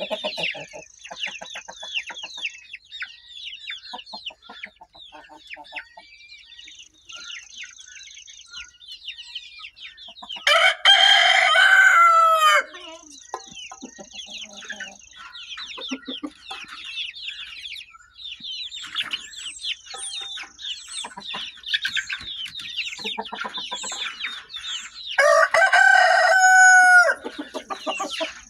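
Backyard chickens: constant high chirping and clucking from the flock, with a rooster crowing loudly twice, each crow about two seconds long, once about ten seconds in and again near the end.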